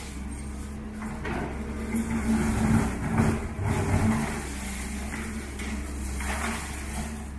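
Doosan DX140W wheeled excavator's diesel engine running steadily while its bucket rakes and drops concrete and brick rubble, the crunching and clattering loudest between about two and four seconds in and again near six seconds.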